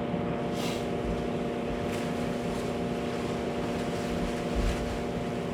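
A steady machine hum with several steady tones, with a couple of faint brief rustles.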